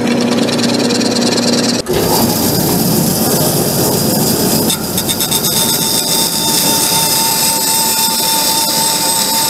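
A drill press runs with a steady hum for about two seconds while a hole is bored through an oak hammer handle. It then gives way abruptly to a benchtop belt sander running as the handle is shaped against its vertical belt. A steady whine joins in about five seconds in.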